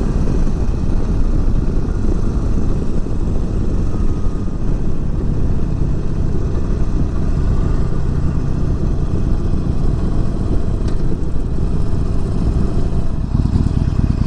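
Harley-Davidson Forty-Eight's 1200 cc V-twin running steadily at cruising speed, mixed with rushing wind noise.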